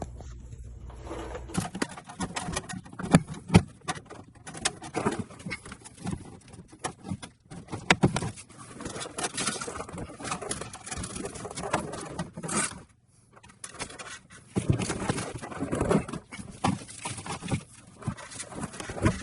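Hands working plastic wire loom and zip ties along truck wiring: irregular clicks, taps and rustling with no steady rhythm, quieter for a moment about two-thirds of the way through.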